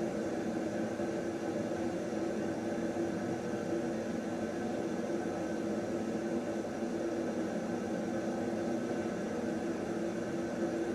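Steady machine hum with a few fixed tones over even background noise, such as a running household appliance or fan.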